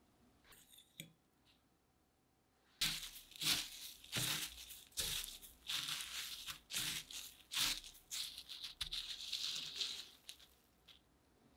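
Panko breadcrumbs crunching and rustling under a gloved hand that presses a mashed-potato wedge into them and scoops crumbs over it. The crisp crunches come in a quick run starting about three seconds in and die away near the end.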